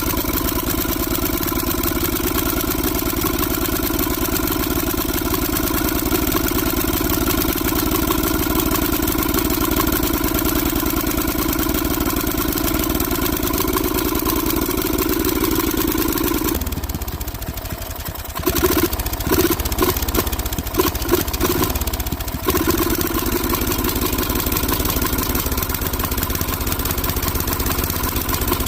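Lawnmower engine running steadily on a freshly cleaned, rebuilt carburetor. About two-thirds of the way through it falters, surges unevenly for a few seconds, then settles back into a steady run. The owner takes this surging for the engine running too rich.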